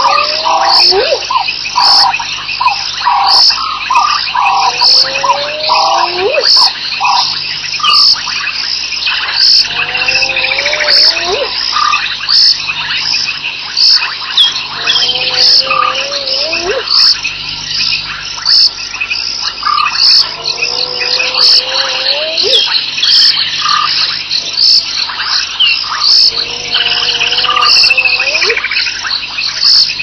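Spotted hyena whooping: a series of low rising whoops, one about every five seconds, each climbing sharply at its end. Underneath runs a steady night chorus of fast, regular chirping, with a few falling whistled bird calls.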